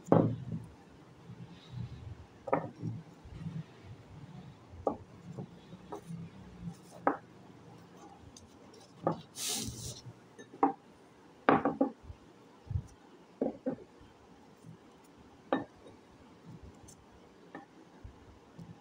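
Dry white chalk-clay discs handled by hand: scattered hard clicks and knocks as they are set down and tapped against one another and a clay dish, with a brief scraping rustle about nine and a half seconds in.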